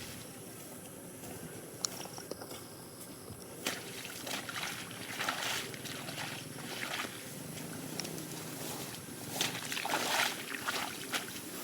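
Shallow water sloshing and splashing in irregular bursts, with a few sharp clicks.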